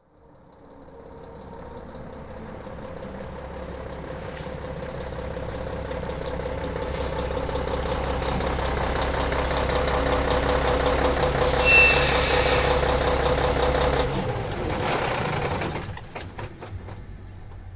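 Truck engine running and growing steadily louder for about fourteen seconds, with a short burst of hiss about twelve seconds in, then dropping away and fading.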